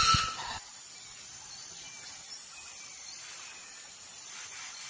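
Faint, steady chirring of insects in dry forest, after a loud rushing noise cuts off about half a second in.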